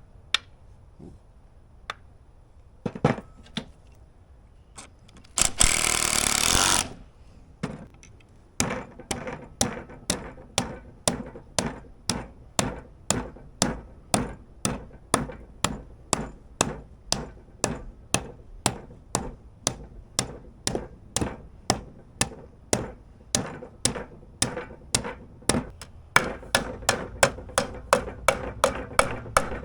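Hammer blows on a sheet-metal patch clamped in a homemade wooden brake, bending it over along the marked line: a few scattered knocks, a harsh rasp lasting about a second some five seconds in, then steady strikes about two a second from about eight seconds in.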